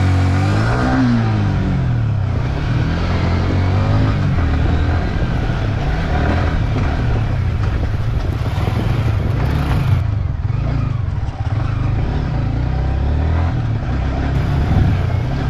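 Motorcycle engine running under throttle, its pitch rising and falling over the first few seconds and then holding a steadier low drone.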